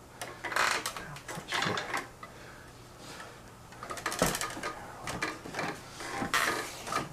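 Handling noises from working on a ceiling-fan test rig: a string of irregular clicks and knocks with bursts of rustling.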